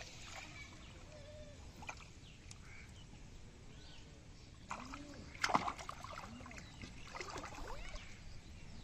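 Hands splashing and sloshing in shallow muddy water as they grope along the bottom, with a sharp splash about halfway through and a few smaller ones later. Faint chirping calls in the background.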